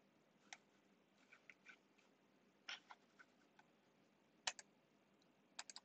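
Near silence with a few faint, scattered clicks, and a quick run of three near the end.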